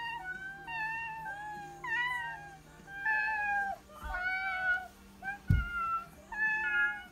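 Children imitating a kitten with their voices: a run of about seven short, high-pitched mews, one after another. There is a low thump a little past halfway through.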